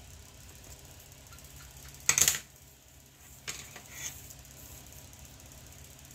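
Handling of a leather baseball glove and its leather lace during relacing: one loud, short scraping sound about two seconds in as the lace is worked through the web, then two fainter ones a little later.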